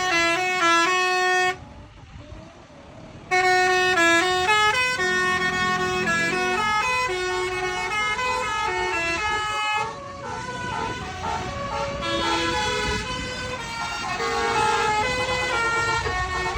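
Indonesian 'telolet' multi-tone bus horn on a Jetbus coach playing a quick stepping melody of notes. It stops after about a second and a half, starts again about three seconds in, and plays a long unbroken run of notes.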